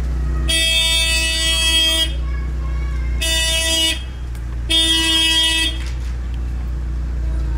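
Car horn honking three times: a blast of about a second and a half, a short one, then another of about a second, over a steady low rumble.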